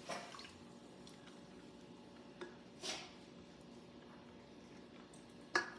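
Quiet room tone with a faint steady hum and a few small handling noises: a light tick, a short rustle, and a sharp tap or click near the end.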